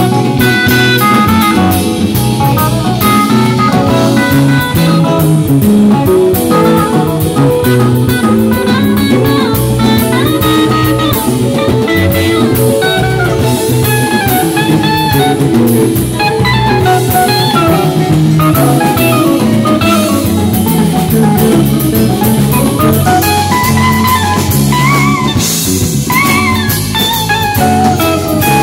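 Live band music: a guitar playing lead lines with bending notes over a drum kit with cymbals and steady low notes.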